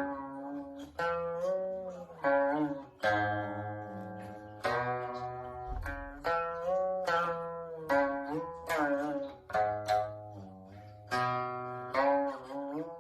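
Guqin played solo: single plucked notes and short groups of notes about once a second, each ringing and fading, many bending up or down in pitch as the player slides along the string.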